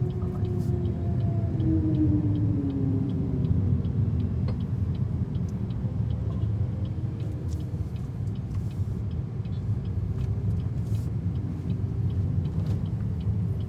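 Steady low rumble of road and traffic noise heard inside a small electric car's cabin as it drives. A pitched tone glides downward over the first few seconds.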